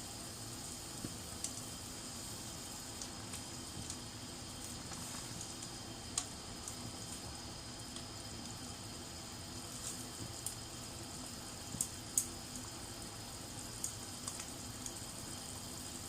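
Food cooking on a stove: a steady hiss with scattered sharp pops and ticks.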